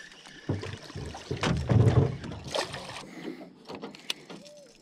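Knocks and thumps against an aluminium boat hull, with water movement, as a hooked peacock bass is brought alongside and landed. The heaviest thumps come about a second and a half in.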